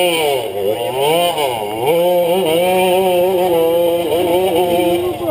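Dirt bike engine revving up and down a few times, then held at a fairly steady pitch for the last few seconds.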